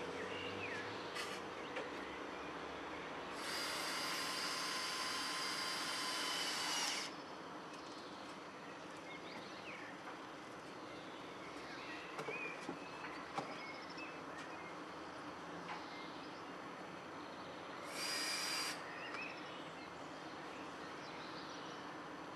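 Cordless drill-driver running twice while fastening wooden shingle elements: a steady whine of about three and a half seconds, then a short burst of under a second later on. A few faint knocks come in between.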